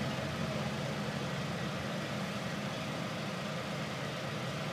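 Bus engine idling steadily, heard from inside the bus.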